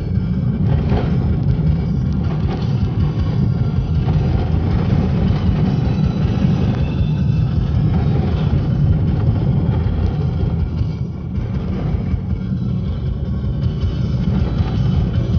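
Steady low rumble inside a moving car's cabin: engine and tyres running on a wet road.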